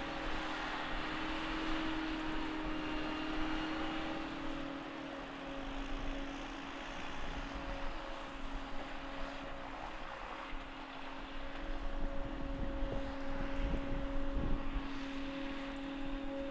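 Krone BiG X forage harvester chopping maize, its engine and chopping gear running at a steady drone with a held whine, with the accompanying tractor's engine running alongside.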